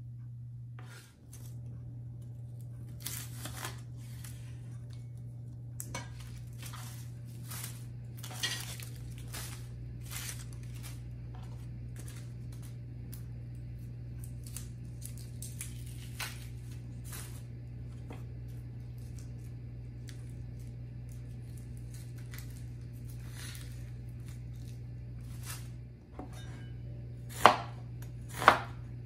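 Onion skins being peeled by hand, with crinkling of a plastic bag and scattered small clicks over a steady low hum. Near the end come two sharp strikes of a cleaver chopping an onion on a plastic cutting board.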